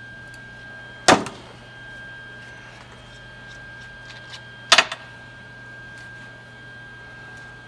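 Steady electrical hum with a faint high whine, broken by two sharp knocks, one about a second in and another about three and a half seconds later.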